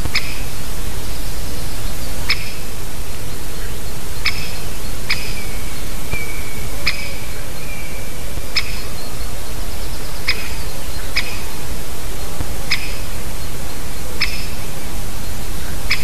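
A woodpecker giving single sharp 'kik' calls, about eleven of them at uneven intervals of one to two seconds, over a steady low rumble.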